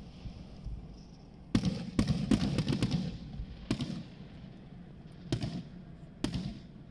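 Aerial firework shells bursting in a series of bangs: a first one about one and a half seconds in, a quick run of them in the middle, then single bangs spaced about a second apart near the end.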